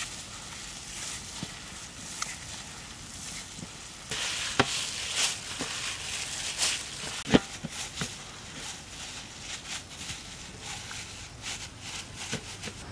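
Plastic-gloved hands mixing and squeezing mashed potato stuffing on a steel plate: wet squishing and crinkling of the gloves, with a few sharp clicks.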